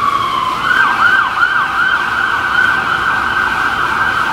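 Emergency vehicle siren: a long wail that slides down in pitch, then switches about half a second in to a fast yelp, rising and falling about three times a second.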